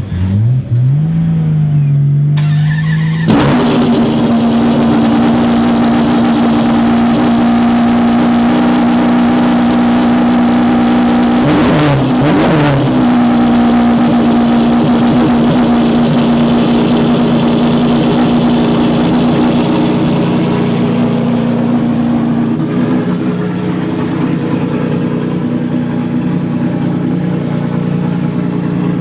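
Maserati MC12 Corsa's V12 engine running loud. The revs climb a little at first, jump up about three seconds in and are held steady. There is a quick drop and recovery around the middle, and the revs settle to a lower steady speed near the end.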